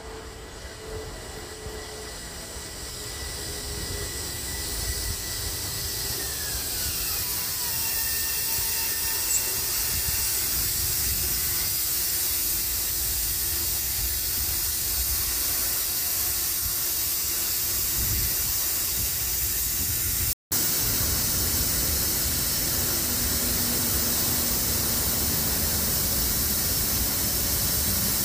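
Long Island Rail Road train passing close by: a thin whine steps down in pitch while a rushing hiss of wheels and air builds up and then holds steady and loud. The sound drops out for an instant about twenty seconds in.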